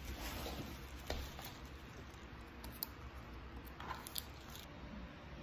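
Faint handling sounds of art supplies on a canvas board: a plastic-wrapped pack of paintbrushes rustles and a few light clicks and taps come through in a small room.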